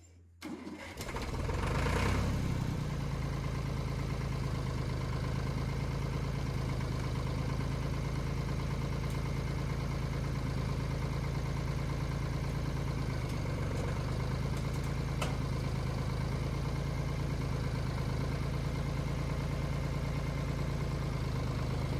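Tractor engine picking up about two seconds in, then running steadily as the tractor carries a long log in its grapple.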